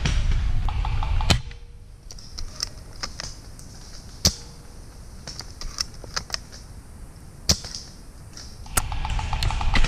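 Scattered sharp clicks and snaps of airsoft guns firing on the field, the loudest about four and seven and a half seconds in. A louder, low rustling noise fills the first second and returns near the end.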